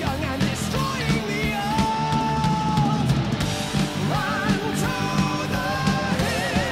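Rock music with guitars and a singing voice: a sung line with long held, wavering notes over a steady band backing.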